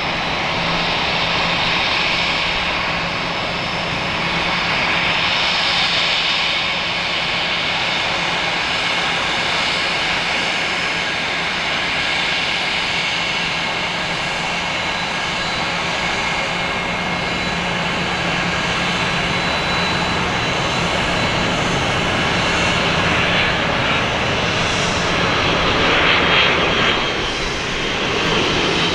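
Boeing 767-300ER's twin jet engines at approach power on final approach with the landing gear down: a steady rush with a faint high whine, swelling slightly near the end.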